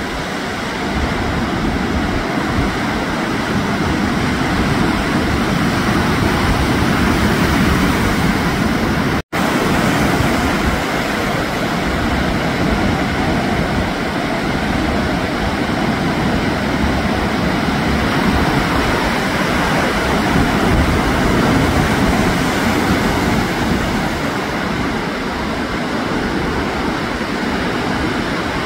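Steady rushing noise of ocean surf breaking and washing through whitewater, with no distinct events. It cuts out for an instant about nine seconds in.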